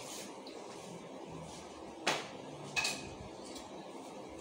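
Two sharp knocks a little over half a second apart, the second with a brief ringing tone, from kitchen cabinets being opened or shut and things inside them being handled.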